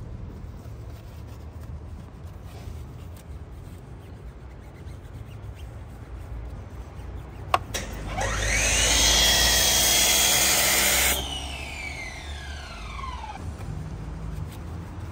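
A handheld electric power tool clicks on, its motor whines up to speed and runs loudly for about three seconds, then is switched off and winds down in a falling whine.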